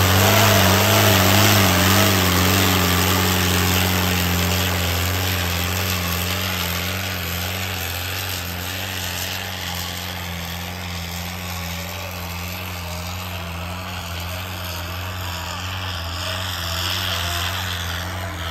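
Modified HMT 5911 tractor's four-cylinder turbocharged diesel engine running hard at steady speed while dragging a disc harrow through dirt. It fades over the first several seconds as the tractor pulls away, then holds steady.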